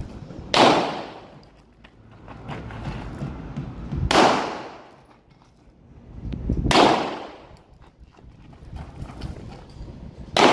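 Pistol shots fired one at a time about three seconds apart, three in all, with a fourth right at the end. Each shot rings out with a short echo.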